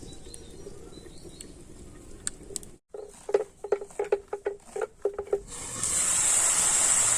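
A few faint clicks, then about a dozen light metallic clinks on a cooking pan over a couple of seconds. After that comes a steady sizzling hiss from potatoes cooking in a kadai that are boiled and now frying.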